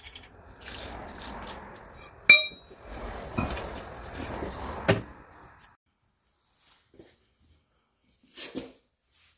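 Lug nuts being spun off by hand and a steel wheel pulled off a truck's wheel hub: rustling and scraping, one sharp ringing metallic clink a couple of seconds in, then knocks as the wheel comes free.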